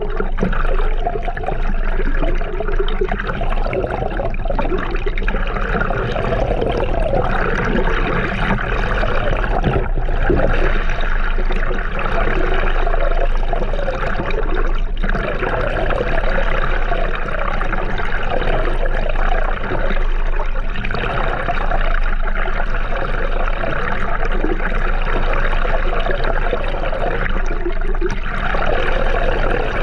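Steady rushing, splashing water noise with no break.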